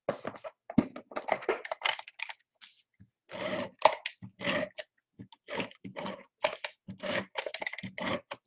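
Paper craft pieces being handled and positioned on a work surface: an irregular run of short rustles and taps.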